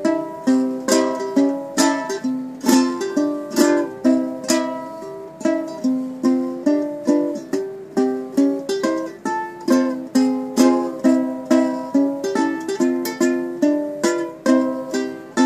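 Home-built steampunk ukulele being played: a steady run of plucked notes and chords, each ringing out and dying away.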